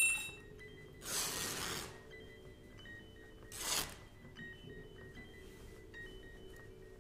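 Sparse improvised experimental percussion: a metallic strike rings at the start, then come two breathy swishes, over faint sustained tones.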